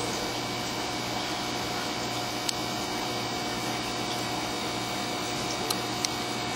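Steady hum and hiss of running aquarium equipment, with three faint ticks: one about two and a half seconds in, two close together near the end.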